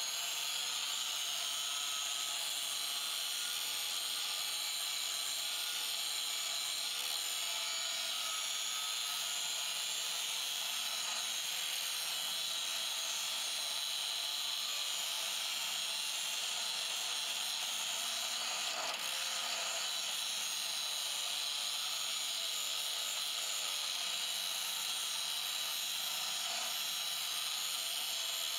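Electric angle grinder cutting a steel plate, its disc held in steady contact with the metal. A continuous whine and hiss with no let-up.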